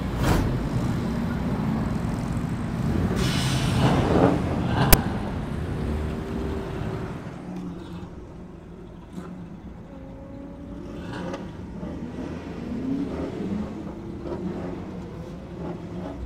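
Car engines running nearby, heard from inside a car, with a few short rises in engine pitch and one sharp click about five seconds in.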